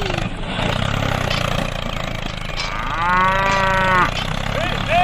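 A cow moos once, a single drawn-out call about three seconds in, over the steady low hum of a small engine running.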